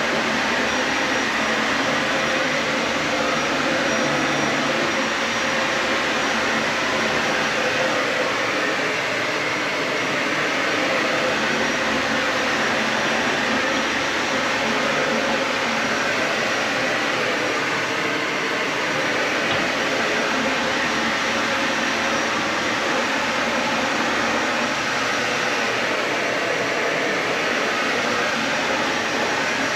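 Dyson Ball Animal 3 upright vacuum cleaner running steadily: a constant rush of motor and airflow with a faint high whine.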